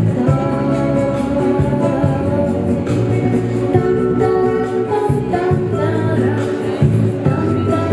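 A boy singing a pop song over a backing track with a steady bass line and beat.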